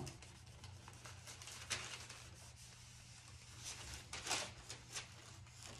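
Faint rustling of a plastic baggie over a hand as it smooths wet decoupage paper onto a wooden board. There are a few soft swishes, the clearest about two seconds and four seconds in, over a low steady hum.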